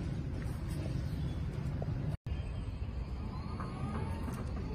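A steady low rumble, cut by a brief dropout about two seconds in, with a few faint short chirps in the second half.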